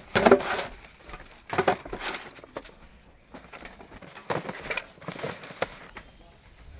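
Cardboard sweet boxes being handled and stacked into a large aluminium pot: four short bouts of card scuffing and knocking against the pot and against each other, the first the loudest.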